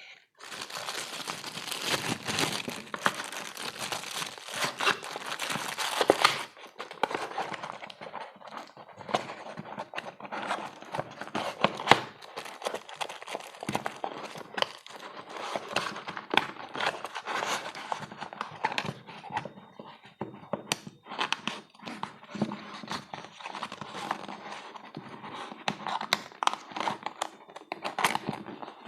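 Parcel packaging being handled and opened: crinkling, rustling and tearing, with many small clicks and taps.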